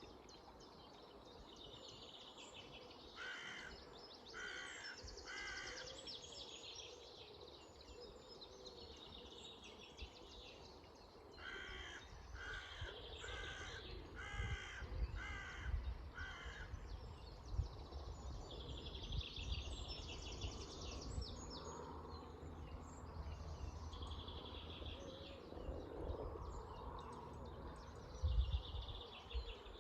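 Dawn birdsong over a steady hiss of flowing river water: one bird gives runs of three to five short harsh calls, a few seconds in and again near the middle, while smaller birds sing high trills between them.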